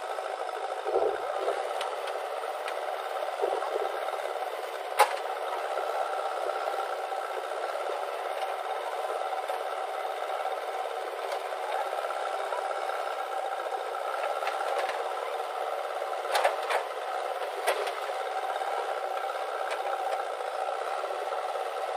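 Diesel engine of a JCB 3DX backhoe loader running steadily under digging work, heard thin with no bass. A few sharp knocks sound over it, the loudest about five seconds in and two more later.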